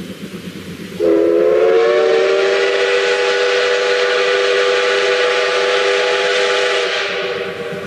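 Steam locomotive's chime whistle blowing a chord of several tones: it comes on about a second in with a brief upward slide in pitch, holds for about six seconds and tapers off near the end, over the steady rumble of the locomotive.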